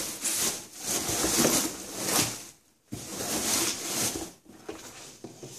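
Hands rummaging through a cardboard box of packaged products, with bouts of rustling and scraping. There is a short break and a sharp tap just under three seconds in, and it tails off near the end.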